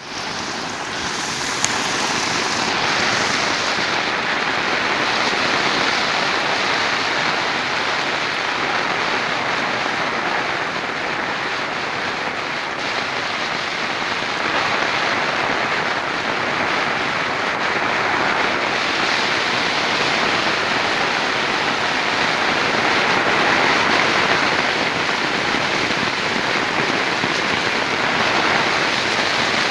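Heavy tropical downpour, a steady dense hiss of rain pouring down.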